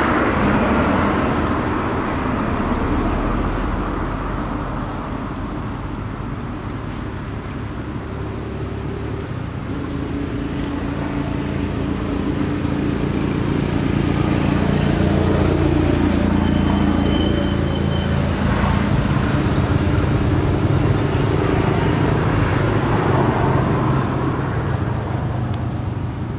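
Motor vehicle engines running, as road traffic: a steady low drone that shifts in pitch a little past halfway through.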